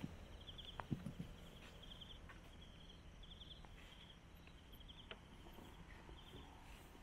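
Faint chirping of a cricket: short, high trills repeating about once a second over a quiet night background. A few small knocks come about a second in.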